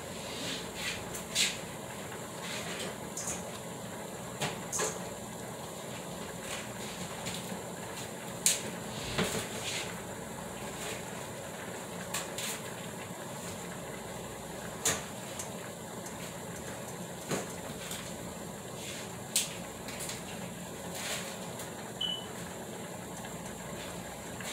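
Scattered short clicks and knocks of things being handled at a kitchen sink, over a steady background hiss.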